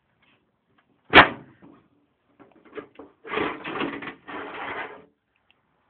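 Metal side panel of an HP desktop computer case being opened: a sharp metallic click about a second in, then two stretches of scraping and rattling as the panel is worked loose.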